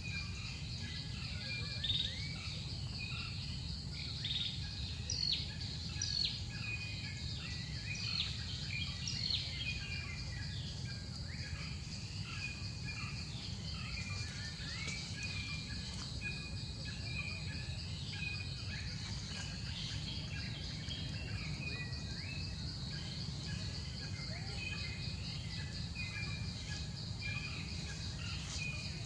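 Outdoor ambience: a steady high insect drone with many short bird chirps and calls scattered over it, above a low steady rumble.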